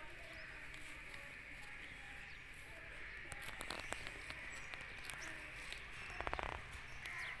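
Faint rural outdoor ambience: a steady high-pitched drone with scattered soft clicks, and a short run of rapid ticks about six seconds in.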